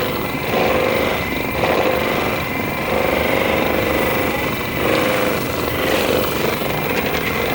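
Percussive massage gun running against the body, a steady rapid buzz whose tone swells and fades several times.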